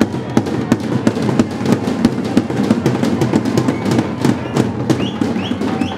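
Large double-headed tabl drums of a Lebanese zaffe troupe beating a fast, loud rhythm of sharp strikes.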